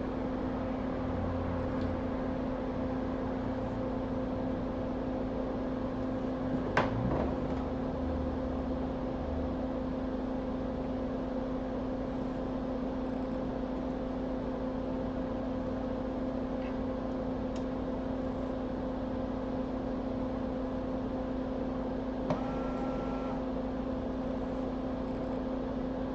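Steady electric fan-motor hum from the repair bench, with a sharp click about seven seconds in and another near the end, the second followed by a brief two-note tone.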